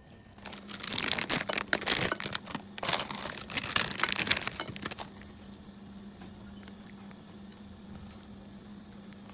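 Dense crinkling and crackling for about four and a half seconds, then it stops, leaving a faint steady hum.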